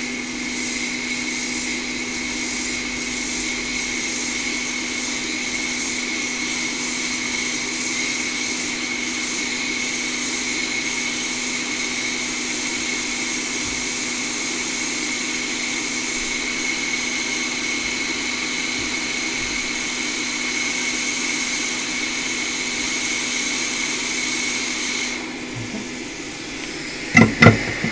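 Quick 861DW hot air rework station blowing a steady hiss with a high whine, melting the solder to desolder a connector from a laptop logic board. The airflow stops about 25 seconds in, and two sharp knocks follow near the end.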